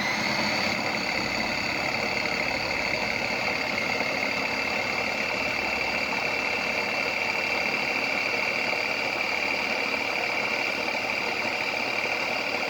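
Small electric meat chopper switched on and running, its motor and blades giving a steady high-pitched whine.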